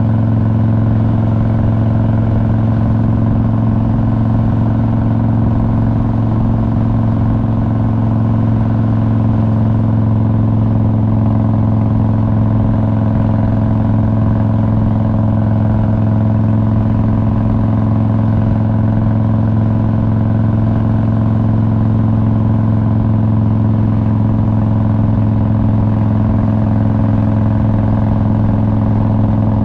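2001 Harley-Davidson Road King's Twin Cam 88 V-twin engine running under way at a steady speed, its pitch holding level.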